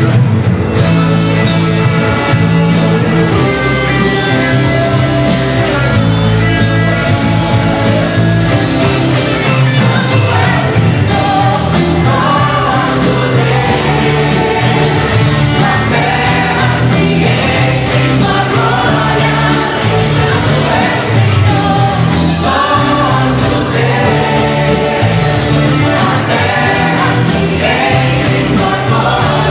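Group of singers performing a contemporary worship song into microphones over a live band with electric guitar and a steady bass line.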